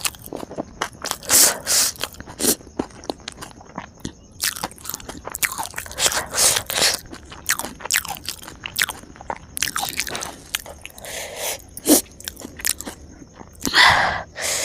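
Close-miked crunching and chewing of crisp food in irregular bites, with sharp crackles as it breaks.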